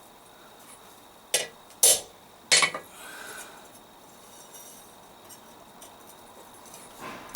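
Hammer striking a chisel to cut veins into a forged leaf: three sharp metallic blows a second or so in, then a pause and one softer blow near the end.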